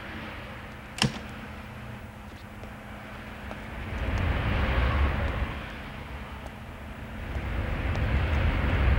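Street traffic: vehicles passing with a low rumble and a hiss that swell up twice, with one sharp click about a second in.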